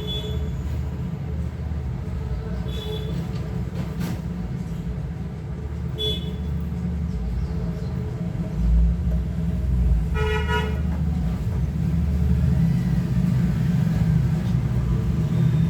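Road traffic: a steady low rumble with four short vehicle horn honks, the one about two-thirds of the way through the longest.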